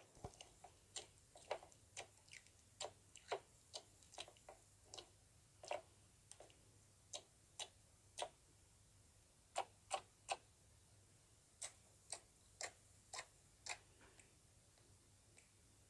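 Slime being squeezed and worked by hand, making small irregular popping clicks about one to two a second that thin out near the end.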